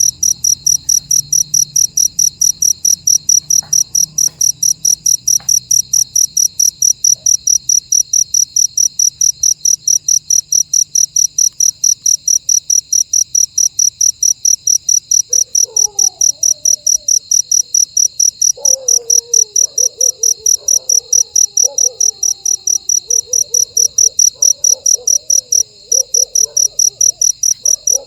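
A cricket chirping steadily in a fast, even, high-pitched pulse of about four chirps a second, with one brief break near the end. A fainter wavering, warbling sound comes in about halfway through.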